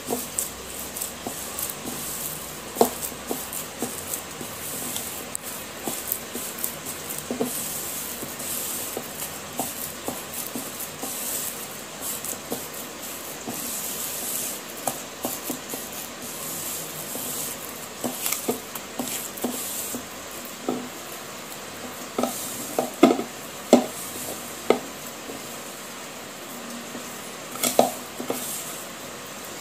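Hands mixing and kneading a wet clay paste against the ridged inside of a bowl: steady wet squishing and scraping with many small clicks, and a few sharper knocks against the bowl in the second half.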